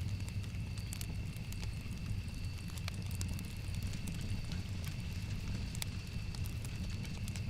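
Wood fire burning in a fireplace: a steady low rumble with scattered sharp crackles and pops. A faint steady high-pitched tone sits behind it.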